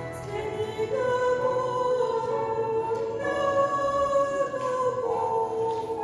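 Music: singing in long held notes that step from pitch to pitch.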